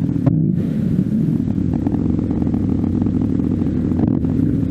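Motorcycle running on the road while being ridden: a steady, loud low drone.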